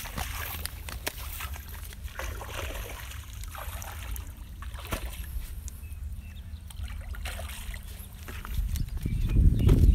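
Muddy water sloshing and splashing around a person wading in a shallow pool, over a steady low rumble that swells louder near the end.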